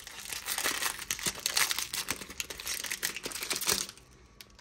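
Plastic packaging crinkling and rustling as it is handled, a dense run of rapid crackles that stops near the end.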